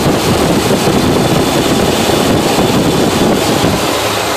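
Rebuilt engine of an old pickup truck idling steadily, heard close up under the open hood; it is purring and runs smoothly.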